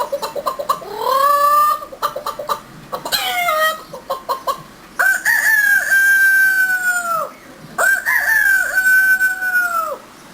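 A person's vocal impression of a chicken and rooster: rapid clucking and short rising calls, then two long crows that fall away at the end.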